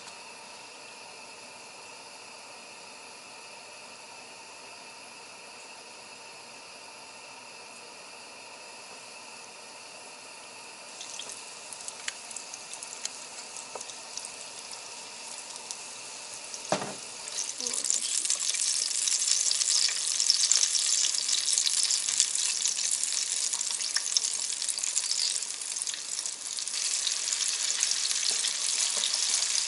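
Wet-battered chicken pieces deep-frying in hot oil in a small saucepan. After a stretch of faint steady hiss, the sizzle starts about ten seconds in and swells a little past halfway into a loud, dense crackling sizzle as more pieces go into the oil. A single sharp knock comes just before the sizzle swells.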